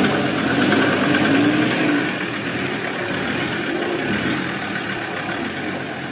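A motor running, its pitch rising and falling slightly, slowly fading out.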